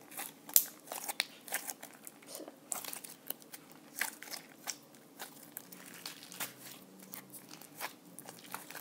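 Blue slime with clay being kneaded in, squeezed and folded by hand, giving irregular sticky clicks and crackling pops.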